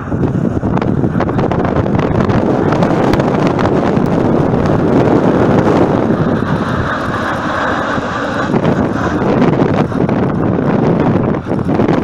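Heavy wind buffeting the microphone over the rushing jet engines of a Ryanair airliner on a low approach, with the engines' whine strongest about six to nine seconds in as it passes close overhead.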